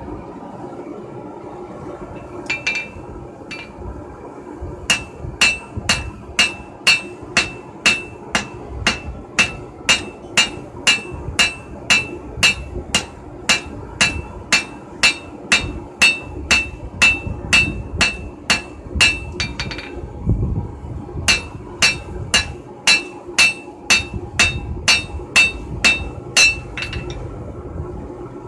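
Hand hammer striking red-hot knife steel on an anvil: a couple of blows, then a long run of steady blows at about two and a half a second, each with a high ring. After a short break, a second run follows that stops near the end.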